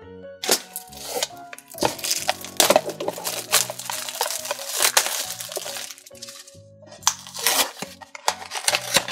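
A Funko Mystery Minis cardboard blind box being pried and torn open by hand: a rapid run of crackles, clicks and tearing. Background music plays under it.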